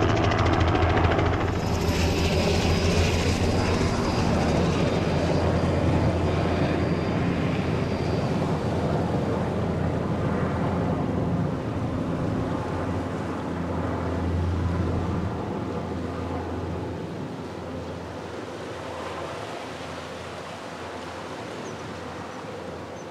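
Leonardo AW139 twin-turboshaft helicopter flying away after takeoff: rapid rotor blade beat with a high turbine whine, fading steadily as it recedes.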